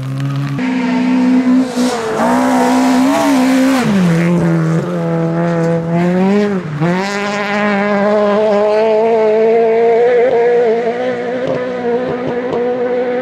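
Rally car engine at high revs on a gravel stage, its pitch jumping up about half a second in, wavering, dropping around four seconds in, dipping again near seven seconds and then held high and nearly steady, over the hiss of tyres and gravel.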